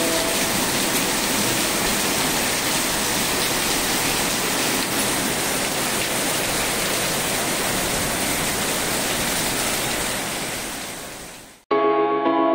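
Steady, even rushing hiss, as of falling water, which fades away near the end; background music then cuts in abruptly.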